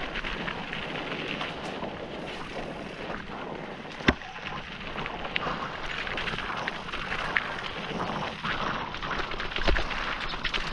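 Mountain bike riding down rocky, loose singletrack: tyres crunching over gravel and stones, wind on the camera microphone, and the bike rattling and clicking over the bumps, with one sharp knock about four seconds in.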